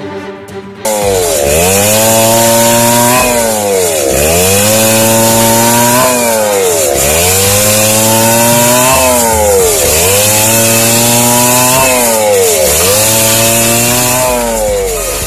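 Power saw whining, starting suddenly about a second in, its pitch dipping and climbing back again and again, roughly every one and a half seconds.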